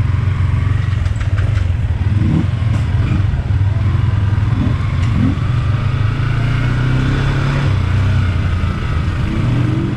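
Yamaha R15 V3's 155 cc single-cylinder engine running as the bike rides off at low speed, a steady low engine note with a few brief rises in pitch as the throttle is opened.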